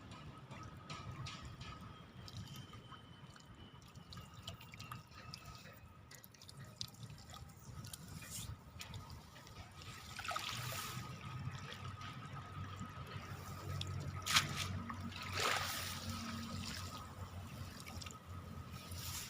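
Water trickling and dripping, with louder splashes about ten and fifteen seconds in, as from a fishing net being worked in shallow rice-field water.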